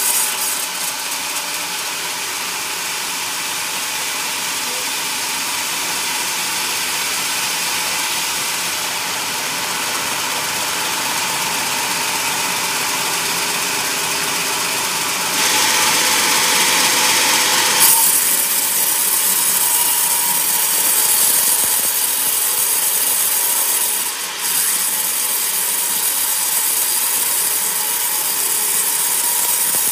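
A sawmill's vertical band saw ripping coconut logs lengthwise: a steady hiss of the blade cutting wood over a constant whine, louder for a couple of seconds about halfway through.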